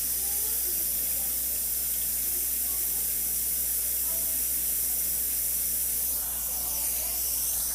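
Tap water running into a glass, a steady hiss that eases briefly about six seconds in.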